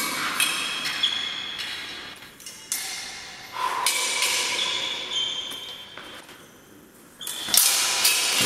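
Steel swords clashing against swords and bucklers in a sparring bout, a series of sharp strikes each leaving a metallic ring that hangs on. The blows come irregularly, with a pause about six seconds in and a loud flurry of clashes near the end.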